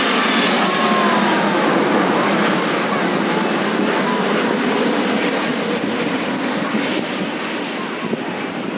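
Airplane on landing approach passing low overhead: a loud rushing engine noise with a faint gliding whine, strongest in the first couple of seconds and slowly fading.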